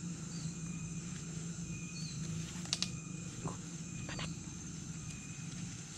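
Forest insects droning steadily and high-pitched, with a few short high chirps. A couple of sharp clicks come near the middle.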